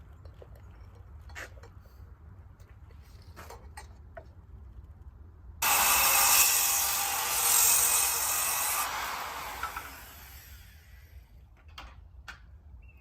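A few light knocks, then a power saw starts cutting through lumber about halfway in, running loudly for about three seconds before winding down and fading out.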